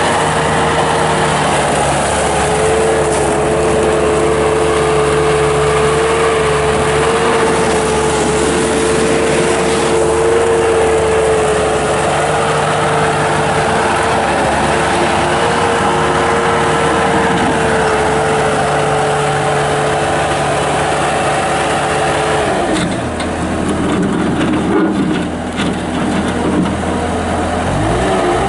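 Bobcat 863 skid steer's oil-cooled Deutz four-cylinder turbo diesel running at high revs, a steady pitched drone. A little over 22 seconds in the pitch drops and wavers for several seconds, the engine pulling down under load, then it climbs back near the end.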